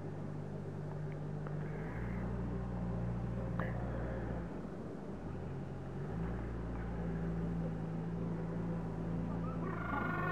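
A low, steady mechanical hum that shifts in pitch a few times, with a few faint penguin calls; right at the end penguins begin calling louder.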